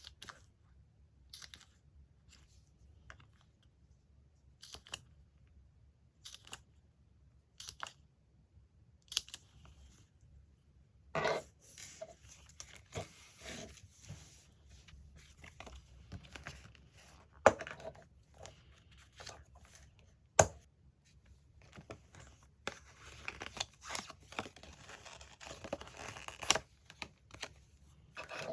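Magazine paper being handled and torn: scattered light taps and rustles at first, then denser rustling and tearing partway through, with a couple of sharp clicks.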